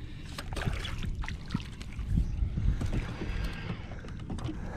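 Rod-and-reel handling noise as a small bass is reeled up and lifted from the water: scattered irregular clicks and ticks with a few low knocks, the loudest about two to three seconds in.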